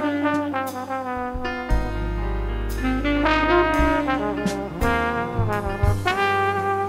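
Jazz instrumental: a horn plays a melody with sliding notes over a steady bass line.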